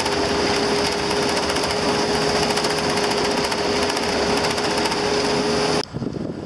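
Bus driving on a gravel road, heard from inside the cabin: loud, steady engine and road noise with a fast rattle and a steady whine. It cuts off abruptly near the end, leaving wind on the microphone.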